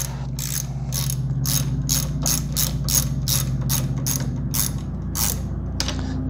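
Socket ratchet clicking as it backs out a front brake caliper mounting bolt, in quick repeated strokes of about three a second, over a steady low hum.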